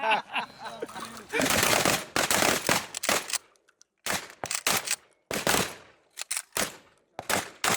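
Rapid, uneven gunfire from several shooters on a firing line, with well over a dozen overlapping shots, each trailed by a short echo.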